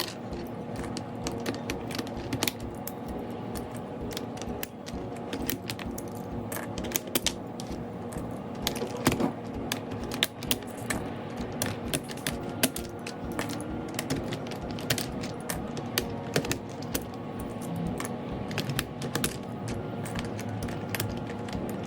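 Plastic keycaps being pulled off an Ajazz AK820 Pro mechanical keyboard and set down, a long run of irregular clicks and clacks.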